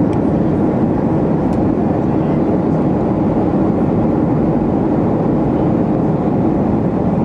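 Steady cabin noise of a Boeing 737-500 airliner in flight: the even rush of its engines and the airflow over the fuselage, unchanging in level.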